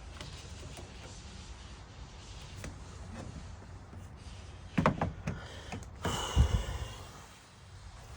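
Hands and tools working at a hose clamp in a car's engine bay. A few sharp metallic clicks come about five seconds in, followed by a louder scraping rustle about a second later, over a low steady hum.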